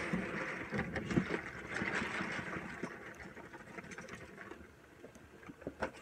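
Dry rye berries pouring from a paper sack into a stainless steel kettle: a steady rattling hiss of kernels hitting metal and each other, which thins out after about four seconds. Near the end come a few sharp crackles of the emptied paper sack being handled.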